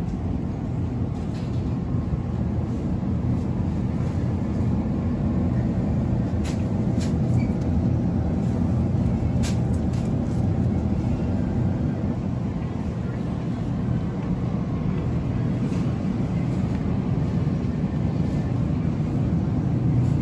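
Steady low hum of a supermarket produce aisle, from its refrigerated display cases and ventilation, with a few brief clicks about halfway through.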